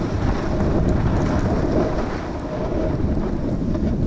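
Wind buffeting an action camera's microphone on a fast descent through powder snow, with the steady hiss of riding through the snow underneath.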